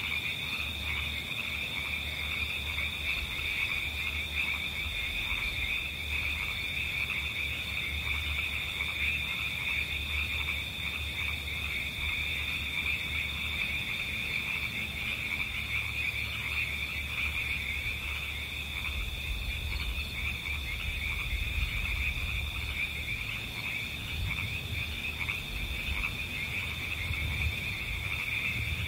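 A steady high-pitched chorus of calling animals: a continuous fast trilling at two pitches with no breaks. Faint low knocks and rustles sit underneath.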